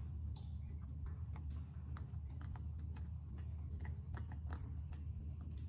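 Baby macaque chewing and biting pieces of sweet potato: soft, irregular mouth clicks and smacks, over a steady low hum.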